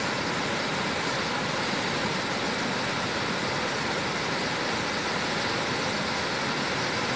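Steady, even rush of a tall waterfall plunging into a deep pool.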